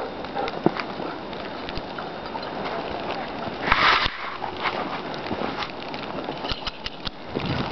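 Wind blowing across the microphone in a snowstorm, a steady rushing hiss with one brief, louder gust about four seconds in.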